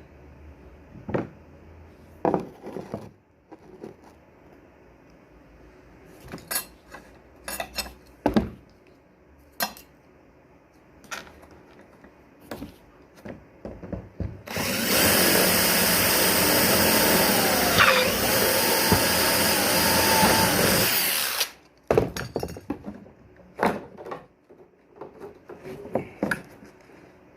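Scattered clicks and knocks of hardware being handled, then an electric drill running steadily for about seven seconds from about halfway in, its tone falling briefly in the middle as it bites, followed by more knocks.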